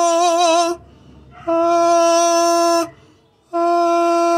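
A man singing a held open vowel on one steady pitch, in long notes with short breaks between. Each note has a slight waver near its end. He is demonstrating the correct open mouth shape for singing.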